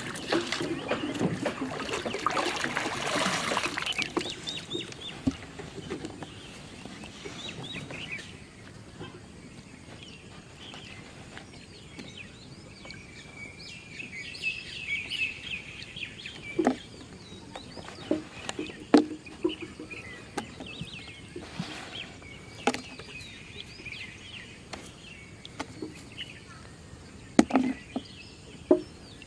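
Birds chirping, with several sharp knocks scattered through. The first four seconds are filled with loud, noisy splashing.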